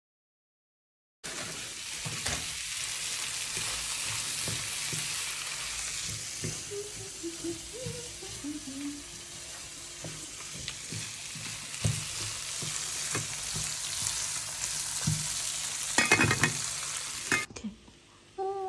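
Food frying in a pan, a steady sizzle starting about a second in, with a utensil knocking against the pan now and then and a run of louder knocks shortly before the sizzle stops near the end.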